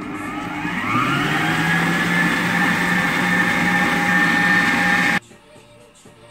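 Electric stand mixer's motor whining as it spins up, its pitch rising over the first second, then running steadily as the flat beater works a thick shrimp and pork paste, and cutting off suddenly about five seconds in.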